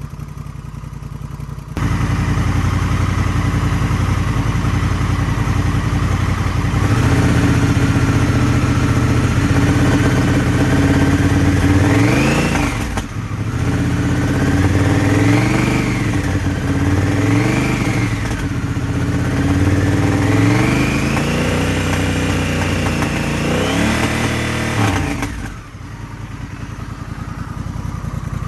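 Honda Rebel 1100's parallel-twin engine running through a cheap aftermarket muffler. It idles, gets louder about two seconds in, then is revved up and down about five times, the last rev held longest, before it drops back to idle near the end.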